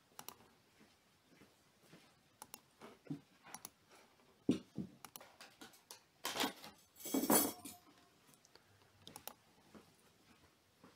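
Scattered light clicks and small knocks of desk handling, likely a computer mouse, with two louder scraping rustles about six and seven seconds in.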